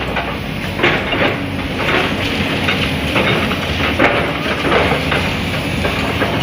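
Backhoe engine running with a steady low rumble, with irregular knocks and crunches as concrete is broken up.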